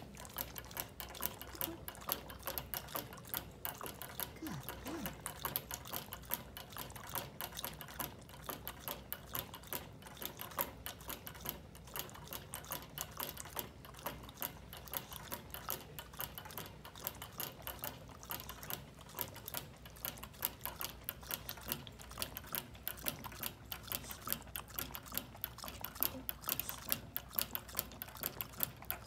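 A dog lapping at the metal ball-valve spout of a gravity-fed water bottle: a rapid, steady run of small clicks, a few a second, as its tongue pushes the ball to let water out.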